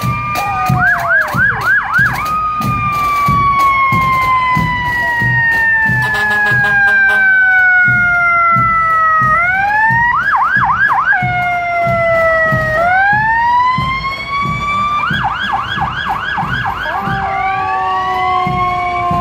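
Emergency vehicle sirens wailing in long slow rises and falls, broken three times by quick yelping warbles, over a steady low thumping.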